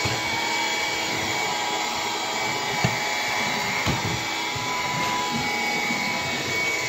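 Bissell PowerGlide cordless stick vacuum running on low power with the brush roll off: a steady motor whine and airflow rush, with two short sharp clicks about three and four seconds in.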